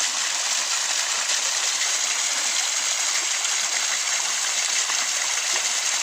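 A small natural waterfall pouring steadily onto rocks and into a shallow stream pool, a constant even splashing of falling water with little low rumble.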